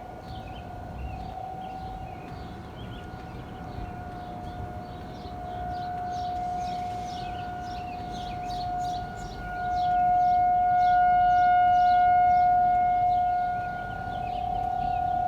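Outdoor tornado warning siren (civil defense siren) wailing on one steady pitch, swelling and fading, loudest about ten seconds in: the alarm for a tornado warning.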